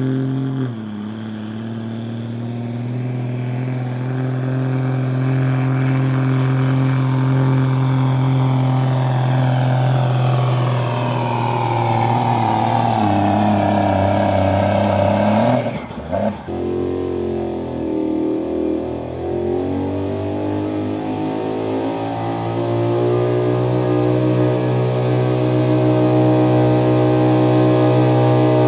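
Diesel Dodge Ram pickup's engine running at full throttle under load as it drags a pulling sled, with a high whine falling steadily in pitch over several seconds. About halfway through the sound breaks off abruptly, and a second pickup's engine, a square-body Chevrolet's, comes up in revs and runs steady at full throttle.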